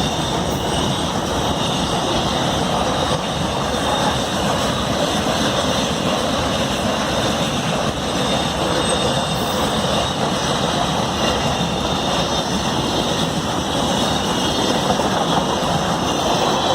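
Goods train rolling past over the rails, a steady rumble and rattle of wagons on the track.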